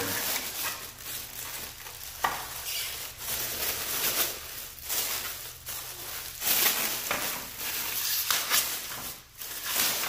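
A clear plastic bag crinkling and rustling as gloved hands pull an electric space heater out of it, with one sharp knock about two seconds in.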